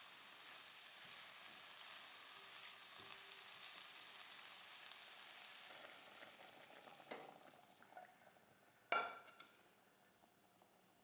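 Food frying in hot oil in a pan, a steady sizzle that fades away after about six seconds. A light knock follows, then a louder clank with a brief ring, like a cooking utensil striking the pan.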